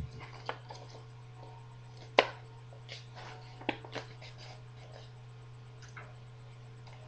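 Scattered light taps and clicks of things being handled, about half a dozen over several seconds, the loudest about two seconds in, over a steady low hum.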